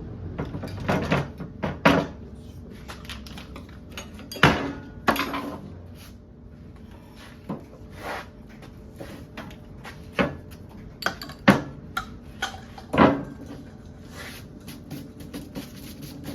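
Irregular knocks and clatter of hard objects being handled and set down, about a dozen, the loudest clustered near the start, the middle and about three quarters through.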